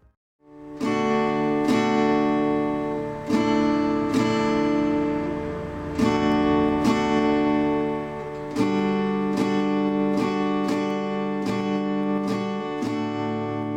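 Acoustic guitar music: chords strummed at an easy pace, each ringing on into the next, starting after a moment of silence.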